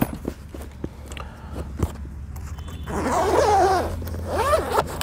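Zipper of a soft rifle case being pulled open, with clicks and rustling as the case is handled. About three seconds in, a louder warbling call sounds twice over the handling noise.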